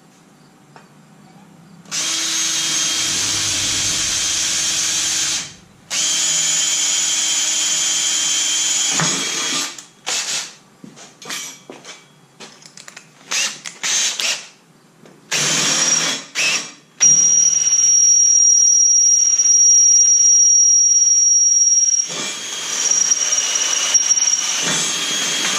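Cordless drill drilling into aluminum square tube: two long runs, then a string of short trigger bursts, then a longer run with a steady high whine, and more bursts near the end.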